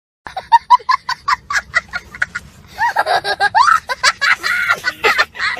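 A person laughing: a quick run of short ha-ha bursts, about four or five a second, then longer voiced laughter that rises and falls in pitch.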